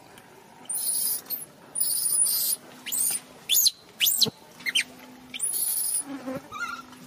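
Newborn macaque crying: about eight shrill, very high-pitched screeches, each under a second long, several sweeping sharply upward in pitch. These are the distress cries of an infant lying alone, away from its mother.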